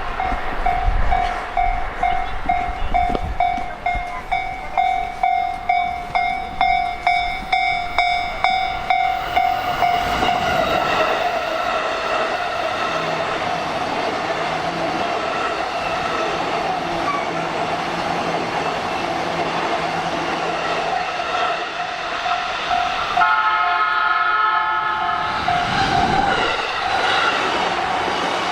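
Level-crossing warning bell ringing about twice a second, then a train runs over the crossing from about ten seconds in, with wheels clattering on the rails and a steady motor hum under the bell. Late on, a horn sounds for a few seconds.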